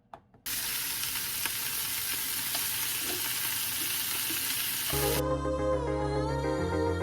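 Food sizzling as it fries in a pan, a steady hiss that starts suddenly and cuts off about five seconds in. Background music follows.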